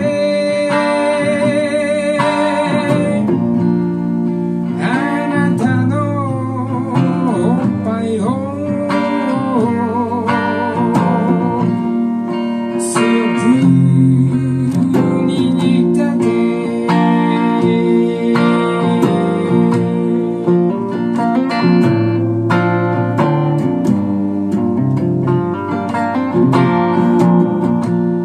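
A man singing a song live while playing a hollow-body electric guitar through an amplifier, the melody wavering in pitch on held notes.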